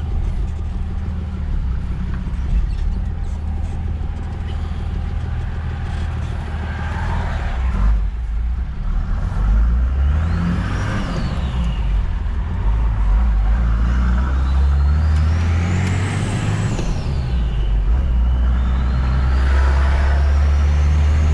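Nissan TD42T turbo-diesel straight-six running under load and accelerating, with the turbo whistling as it spools. The whistle climbs and falls away three times over the second half as the engine builds and drops boost.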